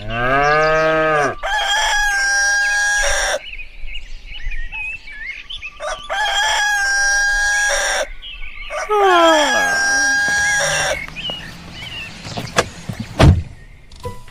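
A rooster crowing three times, a few seconds apart, each crow gliding up and then ending in a long held note. Near the end come a few sharp knocks, one of them loud.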